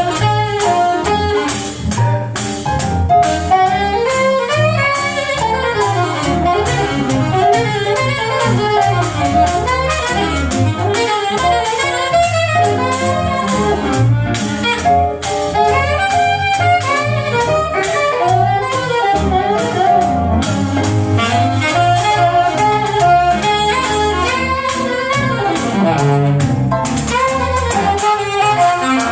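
Live swing jazz: a saxophone plays the melody over a band with a walking bass and a washboard keeping the rhythm.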